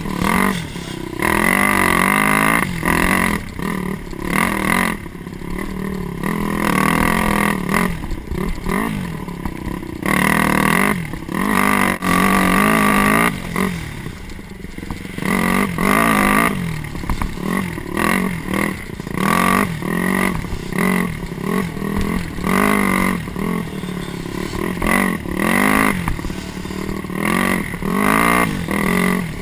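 Dirt bike engine heard at close range, revving up and dropping off again and again as the throttle is opened and closed on a twisting trail.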